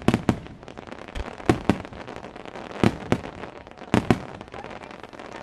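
Starmine fireworks display: aerial shells bursting in pairs of sharp bangs about every second and a half, with crackling between them that thins out near the end.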